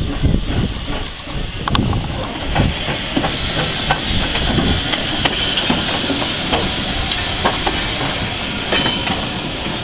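Small steam saddle-tank locomotive moving slowly past: chuffing that gives way, about three seconds in, to a steady hiss of escaping steam, with scattered clicks of wheels on the rails.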